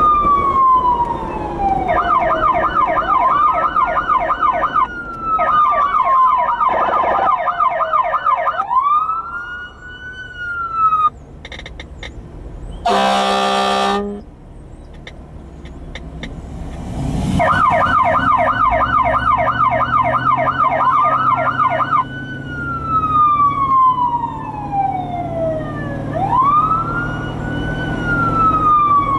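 Electronic police siren on a Jeep cycling through its tones: a slow rising-and-falling wail, then a fast yelp warbling about four times a second. After a short break comes a horn blast of about a second, then yelp and wail again, over the low rumble of the vehicle.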